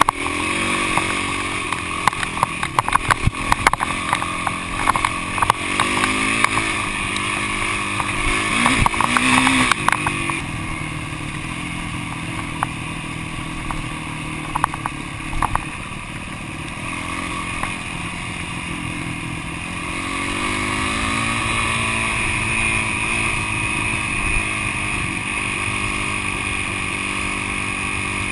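Yamaha YZ450F dirt bike's single-cylinder four-stroke engine running under way, its pitch rising and falling as the rider works the throttle. Over the first ten seconds or so it is mixed with many sharp knocks and rattles. After that it settles into a steadier drone that grows louder about twenty seconds in.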